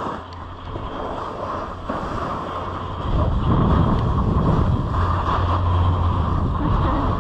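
Snowboard sliding and scraping over choppy snow, with wind buffeting the camera microphone; the rumble gets louder about three seconds in.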